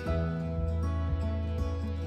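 Instrumental background music, with held notes over a steady bass.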